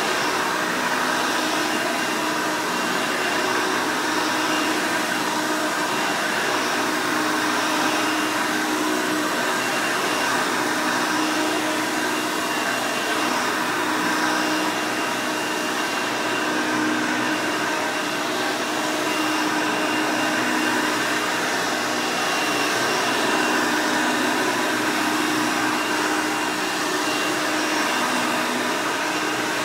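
Hoover Elite 200 U4467 upright vacuum's 5-amp direct-air motor running steadily.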